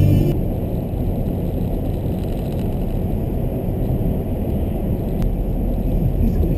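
Steady low rumble of a car's tyres and engine at motorway speed, heard from inside the cabin.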